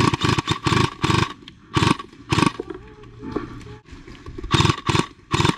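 A gun firing in short rapid-fire bursts, about eight bursts of a fraction of a second each, with a pause of nearly two seconds in the middle.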